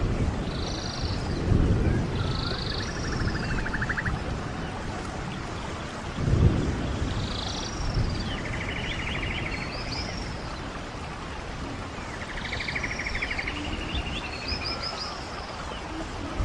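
Songbirds calling and singing in short repeated phrases and quick rattling trills over the steady rush of a running stream. Two brief low rumbles, about a second and a half in and again about six seconds in, stand out as the loudest moments.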